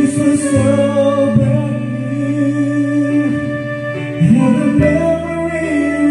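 Karaoke song playing from the Karavision KP9800 player: a slow ballad with a sung melody over its backing track.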